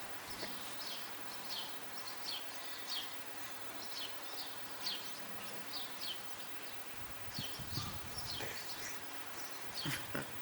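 A small bird chirping repeatedly: short, high, falling notes about once or twice a second, over a steady background hiss.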